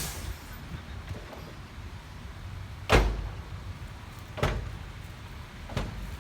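Heavy construction machinery running at a low steady rumble, with three sharp bangs about a second and a half apart, the first and loudest about halfway through.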